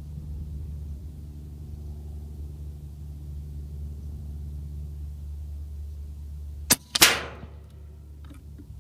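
One shot from an Air Venturi Avenger .25 regulated PCP air rifle: a sharp click, then about a third of a second later a loud crack that dies away within about half a second.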